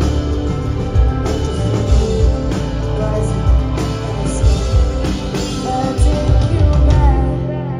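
Live rock band playing: electric guitar, bass guitar and drum kit with cymbals. The drum and cymbal hits stop shortly before the end, leaving sustained guitar and bass notes ringing as the level falls.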